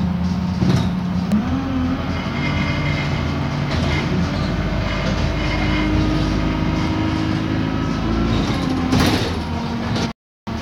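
Hybrid bus heard from inside the passenger saloon while under way: a steady engine drone whose pitch shifts a little, over road noise with a few knocks. The sound cuts out completely for a moment near the end.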